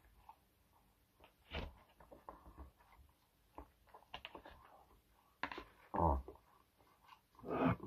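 Eating with wooden chopsticks from a plastic takeout container: chewing and mouth sounds with a few light clicks and knocks. The louder sounds come about a second and a half in, around six seconds, and near the end.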